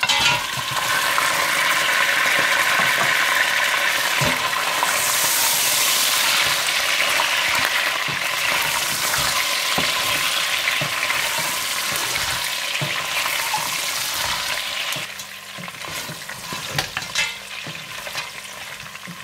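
Boiled mutton pieces sizzling hard as they drop into hot desi ghee with fried onions and are stirred with a wooden spatula. The sizzle starts suddenly and eases after about fifteen seconds, leaving a softer frying hiss with clicks and knocks from the spatula against the steel pot.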